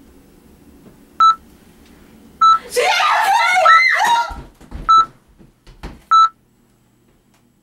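Five identical electronic beeps, evenly spaced about 1.2 s apart like a heart monitor's pulse tone. Between the second and third beeps a person lets out a high shriek that wavers in pitch, followed by a few dull thumps.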